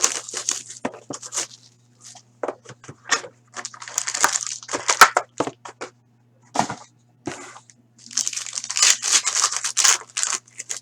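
A sealed card box being opened: plastic wrapping and packaging torn and crinkled in several bursts of rustling, with short clicks between, the longest stretch near the end.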